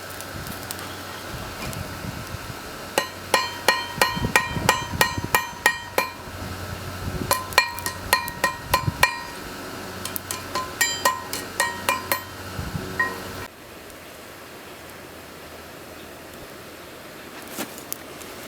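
Hand hammer striking steel on a railroad tie-plate anvil: a run of sharp, ringing blows, about two to three a second, that stops about two-thirds of the way through.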